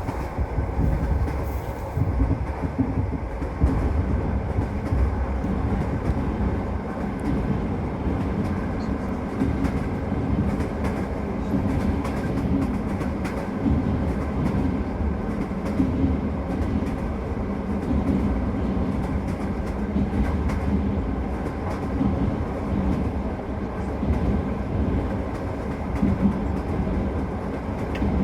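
Passenger train running at speed, heard from inside the carriage: a steady low rumble of the wheels on the track, with occasional clacks as they pass over rail joints.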